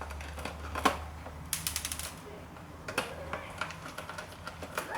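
Small metal clicks and rattles from taking apart a floppy disk drive with a screwdriver bit set, with a quick run of clicks about one and a half seconds in and another cluster around three seconds in.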